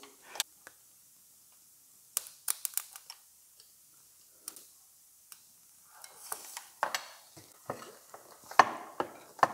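Small clicks and light taps of wire leads and clips being handled against the plastic housing of an electric turbo wastegate actuator. There is a quick run of clicks about two seconds in, and a busier stretch of clicking and rustling over the last few seconds.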